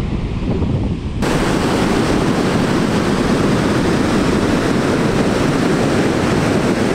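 Ocean surf breaking on a beach with wind on the microphone: a steady, even wash of noise that turns louder and fuller about a second in and then holds.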